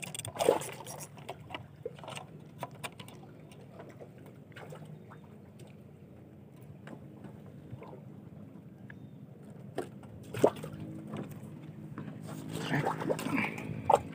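Water sloshing and lapping, with scattered knocks and clicks of fishing rod and reel being handled on wooden planks over a steady low hum. The sharpest knocks come about half a second in, about ten and a half seconds in, and in a cluster near the end.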